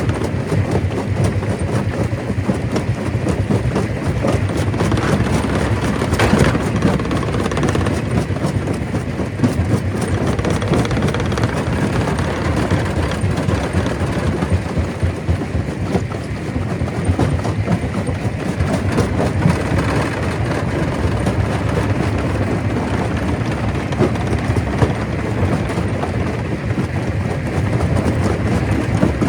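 Stone crusher running under load, a continuous heavy grinding and clatter of rock being broken, with many small knocks and rattles of stones throughout.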